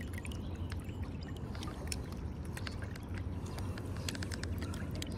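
Water dripping and trickling off a smallmouth bass into the river, with scattered small splashes over a steady low rumble.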